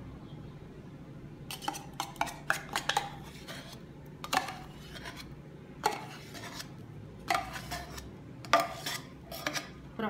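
Metal spoon scraping and clinking against an emptied tin can of condensed milk and the rim of a stainless steel pot, scraping out the last of the milk. Irregular clusters of short knocks and scrapes start about a second and a half in.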